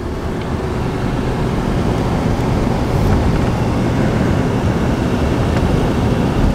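A car driving along a road: steady engine and tyre noise that builds a little over the first couple of seconds and then holds.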